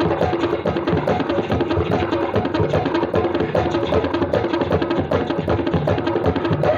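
Tabla played in a fast, even run of strokes with the tuned drum ringing underneath, imitating the rhythm of a moving train.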